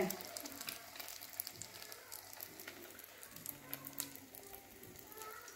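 Egg-coated chicken-and-lentil shami kebabs sizzling in shallow oil in a frying pan, with a quiet, irregular crackle.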